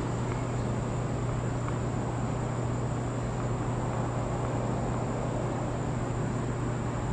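Steady low hum with an even hiss over it and a faint thin high tone: the open-air ambience of a tennis court while no ball is being struck.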